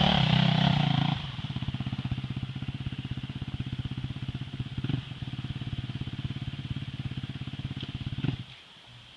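Off-road vehicle engine running at higher revs, dropping about a second in to a steady pulsing idle, then shut off shortly before the end.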